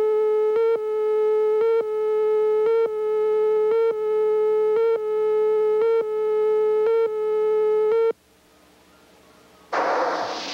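Videotape countdown tone: a loud, steady beep broken by a short gap about once a second as the slate counts down, stopping about eight seconds in. After a second or so of quiet, a burst of hiss starts near the end.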